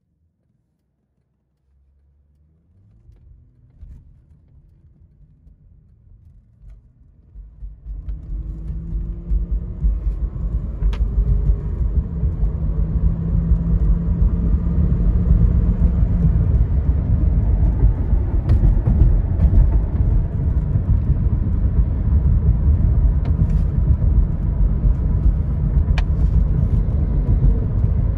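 Inside the cabin of a 2005 Cadillac XLR driving on a road: engine and tyre noise from its 4.6-litre Northstar V8, faint at first and building over about the first ten seconds into a steady low rumble, with a few light ticks.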